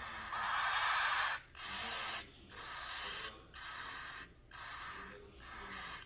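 Cockatiel chicks giving raspy, hissing food-begging calls, about one a second, loudest at first and growing fainter. These are the calls of unweaned chicks asking to be hand-fed.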